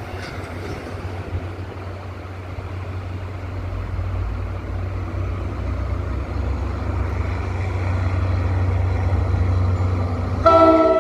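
NJ Transit GP40PH-2B diesel locomotive approaching, its engine a steady low drone that grows louder as it nears. Near the end the locomotive's air horn sounds a loud multi-tone chord.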